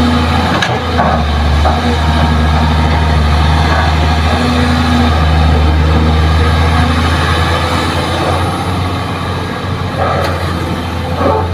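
Kobelco hydraulic excavator's diesel engine running steadily under load as it swings and loads fill soil into a dump truck, a deep even drone with a few brief knocks.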